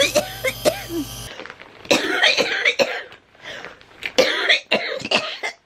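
A person with cystic fibrosis coughing hard in a series of repeated bursts, typical of a cystic fibrosis cough clearing the airways.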